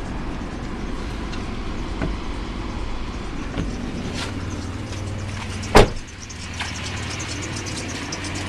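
Mitsubishi 3.0 V6 (6G72) engine idling steadily, with occasional faint squeaks. A single sharp knock about six seconds in is the loudest sound.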